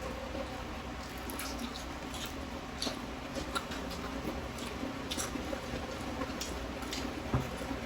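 People eating crispy pata (deep-fried pork knuckle): chewing, with scattered small clicks and taps, over a steady low hum.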